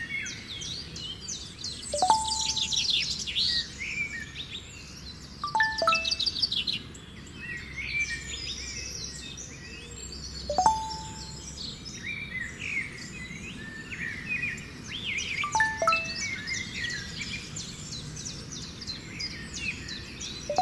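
Birds chirping and singing throughout, with a message alert tone every four or five seconds: a single short ping alternating with a quick falling four-note chime.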